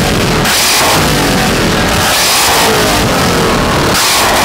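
Loud rock music with a heavy drum beat.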